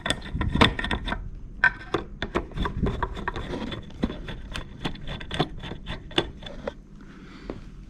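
Small screws being unscrewed from the base of a wall clock case: a run of irregular quick clicks and scrapes as the screwdriver turns and the screws come loose.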